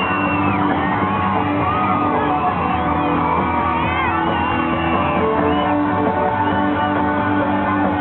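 Music playing with a crowd shouting and whooping over it.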